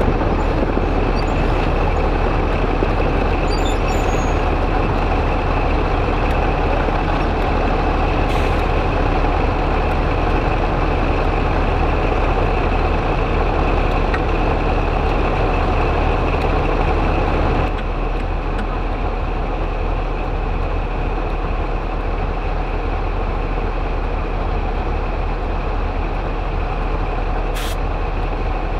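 Diesel locomotives idling close by: a steady heavy engine rumble with a high whine held over it. The level drops slightly about two-thirds of the way through.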